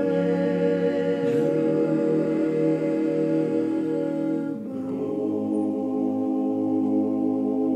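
Male klapa, a Dalmatian a cappella vocal ensemble, singing long held chords in close harmony. The chord shifts about a second in and again past halfway, after which the upper voices thin out and it goes a little softer.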